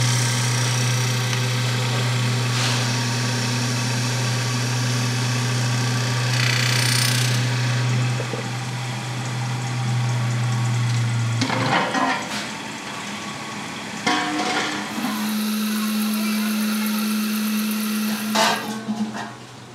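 Lathe motor running with a steady hum while a metal pot spins against a cutting tool. About halfway through the hum stops suddenly, and a few sharp metal knocks and clanks follow, with a different steady machine tone near the end.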